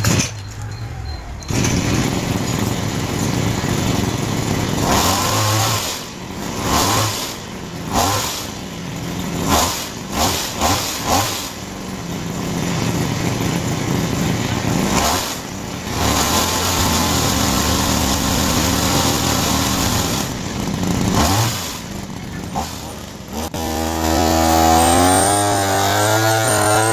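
A small motor running loud in repeated spells, its pitch wavering up and down near the end.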